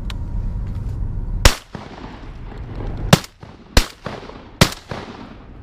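Four shotgun shots from duck hunters, the first and loudest about a second and a half in, then three more quickly in the next few seconds, each trailing off in a short echo.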